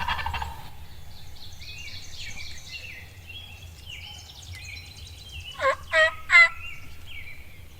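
A wild turkey gobbler's gobble dies away in the first moment. Songbirds chirp faintly, and about six seconds in three loud turkey yelps come in quick succession.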